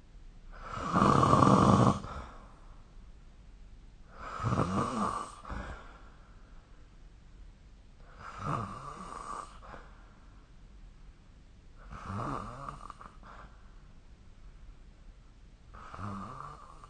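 A sleeping person snoring in a slow, regular rhythm: five snores about four seconds apart, each lasting a second or so. The first is the loudest and the later ones fainter.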